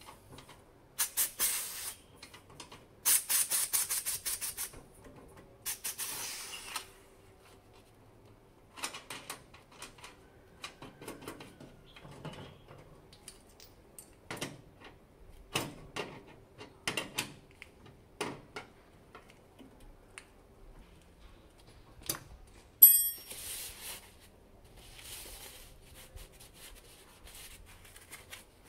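Pressurised gas hissing in several short bursts at the brass service valves and copper line fittings of a split air conditioner's outdoor unit, with metal clicks and taps of hand tools between them. A sharp metallic clink rings out late on, followed by more hissing.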